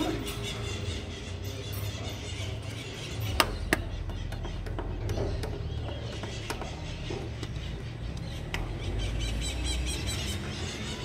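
A pause between strikes of a tolling church bell: a low, uneven rumble with a few sharp clicks, the two loudest about three and a half seconds in.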